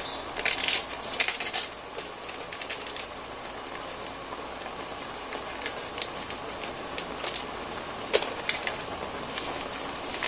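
Pan of fish cake, rice cakes and ramen noodles boiling in water: a steady bubbling hiss with scattered pops and clicks, one sharper click about eight seconds in.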